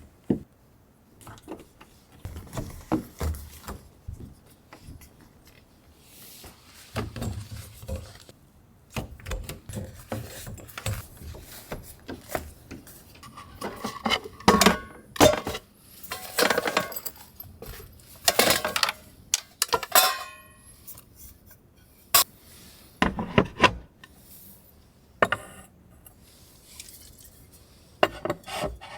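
Irregular clinks, knocks and rattles of small objects being handled, like dishes and utensils, busiest about halfway through.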